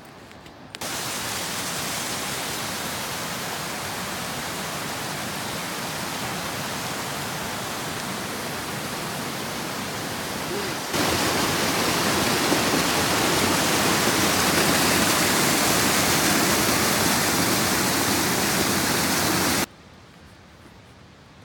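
Steady rush of falling water from a waterfall. It cuts in just under a second in, jumps louder about halfway through and stops abruptly near the end.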